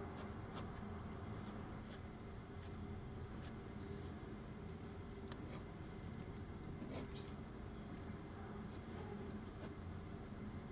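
Ballpoint pen scratching on paper in many short, quick strokes, faint over a steady low background hum.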